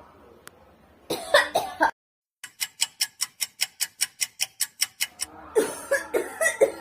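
A person coughing in short fits: one burst about a second in, and more coughing near the end. In between, after an abrupt cut, comes a rapid, even run of about twenty short clicks lasting some two and a half seconds.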